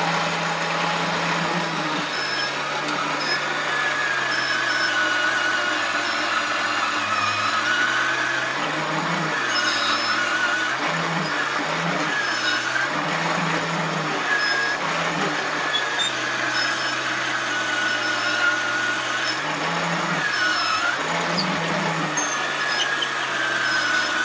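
Small electric motor of a Kenner Betty Crocker toy juicer-blender spinning its plastic reamer, its hum sagging in pitch and recovering again and again as an orange half is pressed down on it. Over it come wavering squeaks from the pressing, which the owner calls squeaky sounds.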